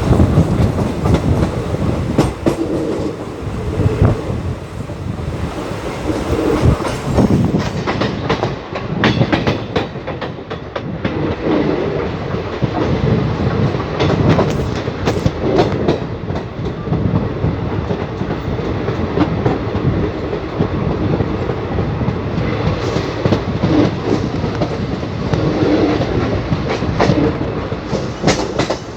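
Train running along the track: a steady rumble with repeated clickety-clack of the wheels over rail joints.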